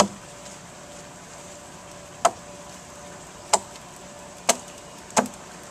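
A short-handled hand tool striking into the wood of a log as a canoe hull is hollowed out by hand: five sharp blows at uneven intervals, the first the loudest.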